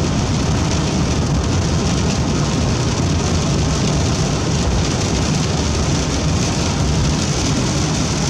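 Storm wind and rain on a campervan: a steady, loud rushing noise with no breaks.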